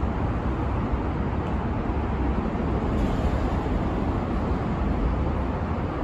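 Steady road-traffic noise, a continuous low rumble and hiss without any single passing event.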